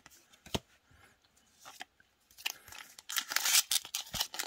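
A few light clicks of trading cards being handled, then the foil wrapper of a Magic: The Gathering booster pack crinkling and tearing as it is ripped open, loudest in the last second and a half.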